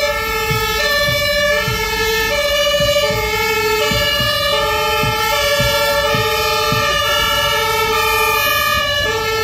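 German fire engine two-tone siren (Martinshorn) sounding continuously, alternating between a low and a high note, each held for under a second.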